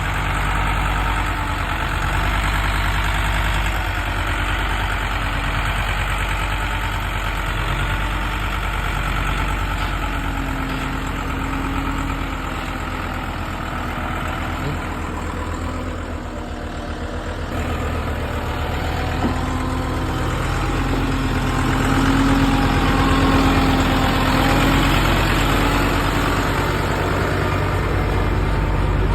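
Heavy diesel engine of a forestry machine running steadily under varying load, its tone shifting slightly, dipping about halfway through and picking up again after it.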